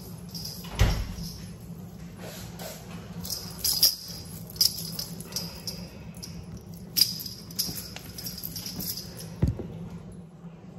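Kitchen clean-up clatter: about five sharp knocks with jingling rattles of dishes and utensils being handled and put away, over a steady low hum.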